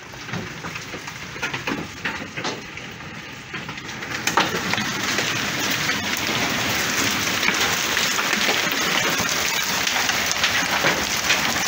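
Hail mixed with heavy rain pelting the ground, cars and house, with scattered sharp ticks of hailstones over a steady hiss. It grows louder about four seconds in.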